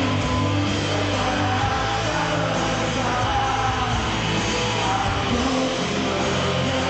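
Rock band playing live: loud, steady guitars, bass and drums, with a singer's voice over them.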